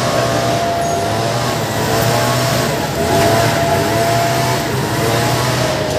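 Several racing scooter engines running at once at high revs, one holding a steady high note while others rise in pitch again and again as they rev.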